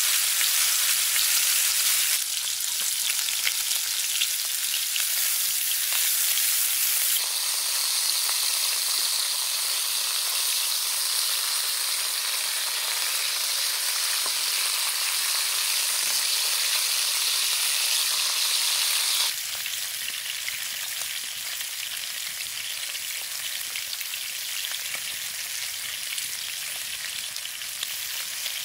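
Pork chops sizzling as they sear in hot oil in a metal pan: a steady, dense hissing crackle. Its level steps down abruptly a few times, most clearly about two-thirds of the way through.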